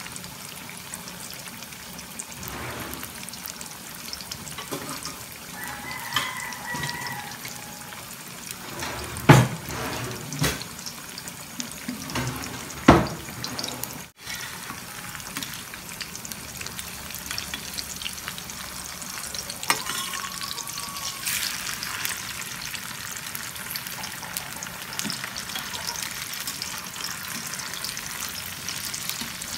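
Tofu blocks pan-frying in hot oil in a stainless steel skillet: a steady crackling sizzle. A few sharp knocks stand out about nine to thirteen seconds in.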